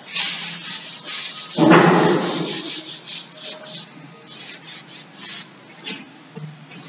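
Chalkboard being wiped clean: repeated rubbing strokes across the board's surface. A brief louder sound comes about a second and a half in.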